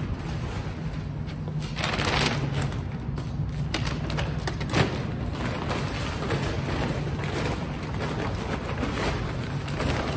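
Grocery bags rustling and knocking as they are loaded into a car's back seat, with a sharp knock about five seconds in, over a steady low hum.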